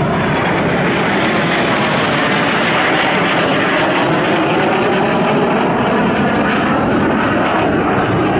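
Aermacchi MB-339 PAN jet trainer's single Rolls-Royce Viper turbojet, loud and steady as the aircraft flies past and banks away.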